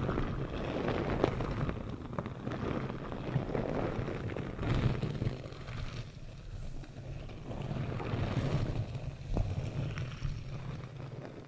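Close-miked ASMR trigger sounds: rustling and scratching that come and go in swells of a second or two, with a few small sharp clicks.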